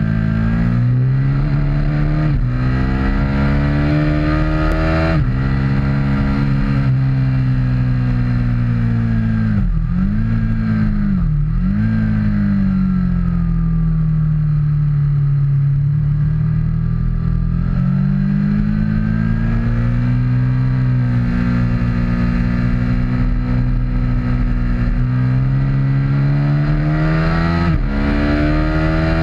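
Aprilia RSV Mille R's V-twin engine at full track pace, its pitch climbing and dropping sharply at each gear change, easing off with two deep dips about ten seconds in, then pulling hard again, over low wind rush.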